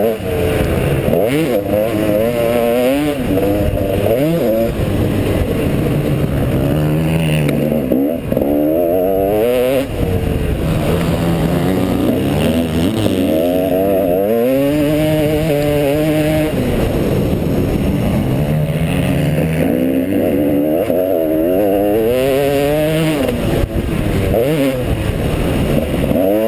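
Motocross bike engine revving hard under the rider, its pitch climbing and dropping again and again as it accelerates and backs off, heard from a helmet-mounted camera.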